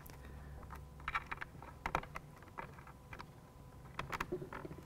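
Faint, irregular light clicks and taps of screws and hard plastic being handled, as screws are lined up in a Fox Body Mustang center console armrest trim panel.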